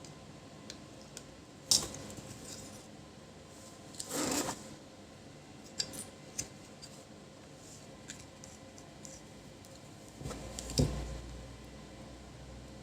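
Scattered clicks and light metallic clinks of small tools and electronic parts being handled on a workbench, with a short scrape about four seconds in and a thump near the end.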